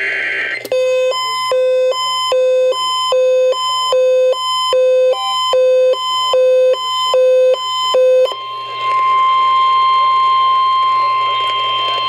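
First Alert emergency alert radio sounding an EAS alert: the end of a SAME data burst, then about a dozen two-pitch alarm beeps, roughly one and a half a second, then a steady tone of about 1 kHz from about 8 s in until near the end.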